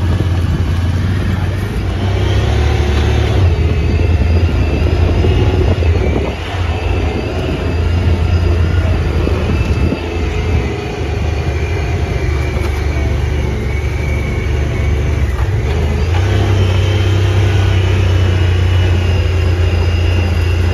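Side-by-side UTV engine running as the vehicle drives a dirt trail: a steady low drone with a higher whine that rises and falls with speed, easing off briefly twice.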